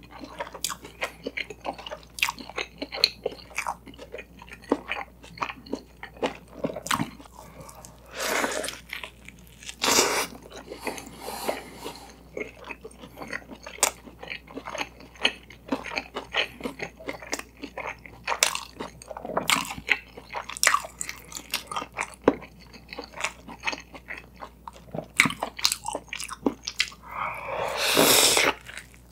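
Close-miked chewing and crunching of a toasted bread sandwich filled with egg and shredded cabbage: a steady run of small crunches and wet mouth clicks, with a few longer, louder crunching bites, the loudest near the end.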